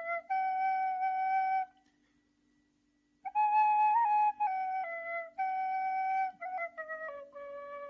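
Nay, an end-blown reed flute, playing a slow melody of long held notes. It stops for about a second and a half, then comes back in with notes stepping down in pitch near the end.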